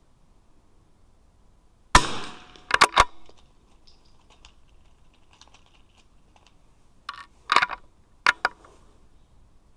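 A single .22 LR rimfire rifle shot about two seconds in, followed within a second by two sharp metallic clicks. A further group of short clicks comes between about seven and eight and a half seconds in.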